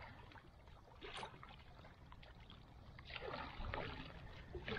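Kayak paddle blades dipping into the water, with faint splashing and dripping from the strokes, a little more of it in the last couple of seconds.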